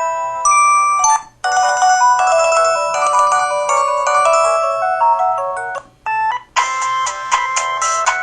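LG-KP3500 mobile phone playing its built-in ringtone melodies one after another, several notes at once. One tune ends about a second in, the next runs until nearly six seconds, then a short chime plays and a new tune with a quick, even beat starts.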